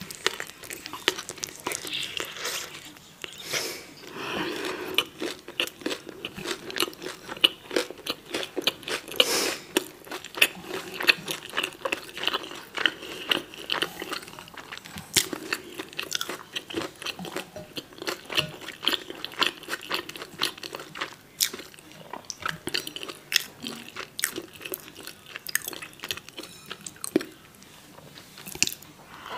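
Close-miked chewing of a taco roll: a bite, then a run of quick mouth clicks, smacks and soft crunches while chewing.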